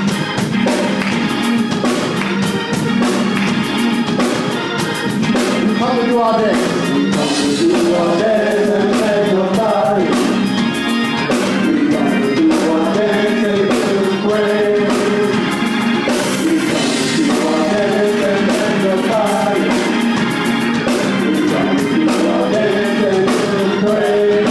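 Gospel praise and worship music: voices singing over steady instrumental accompaniment.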